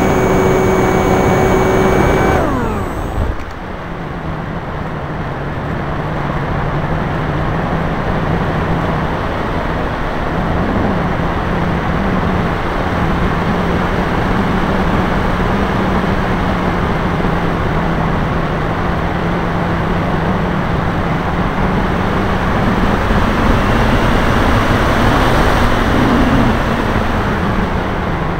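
The motor and propeller of a Max 1500 model motor glider whine for about two and a half seconds, then the motor is cut and the whine falls away in pitch and stops. After that there is steady wind rush over the glider and camera as it glides with the motor off, growing a little louder near the end.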